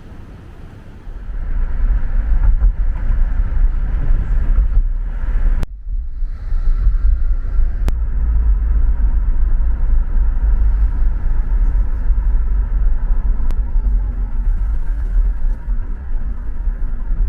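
Steady low rumble of a moving vehicle, starting about a second in, with a brief break near the middle.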